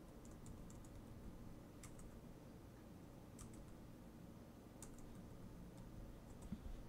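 Faint computer keyboard typing: soft key clicks in small clusters every second or two.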